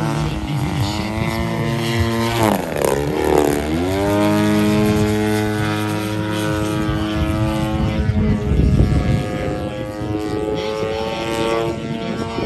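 Engine and propeller of a Skywing Edge 540 radio-controlled aerobatic plane in flight. Its pitch drops sharply about two seconds in, climbs back within a second, then holds steady at high throttle.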